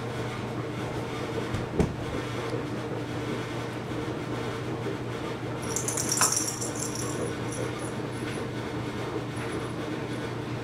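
A cat batting a small hard toy ball around: a single sharp knock about two seconds in, then a brief high jingling rattle around six seconds in as the ball skitters onto the hardwood floor. A steady low household hum runs underneath.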